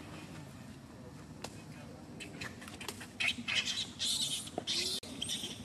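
A baby monkey's short, high-pitched squeaks and scratchy clicks, starting about halfway through and coming in a quick run toward the end, over a faint low murmur.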